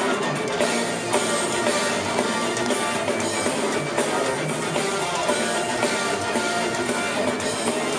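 A folk-metal band playing live, with distorted guitars and a drum kit in a dense, steady wall of sound.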